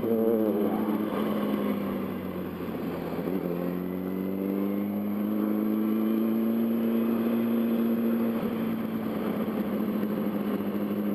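Yamaha R1's inline-four engine at low revs, cruising in city traffic with wind noise on the microphone. The engine note dips about three seconds in, then climbs slowly and levels off.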